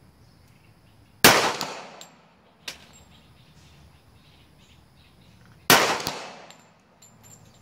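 Two gunshots about four and a half seconds apart, each with a short echoing tail, and a faint sharp knock a second and a half after the first shot.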